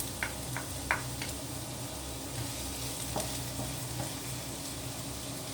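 Minced ginger and garlic sizzling in hot oil in a wok, frying until fragrant. Several quick clicks of stirring come in the first second or so, and a few lighter ones later.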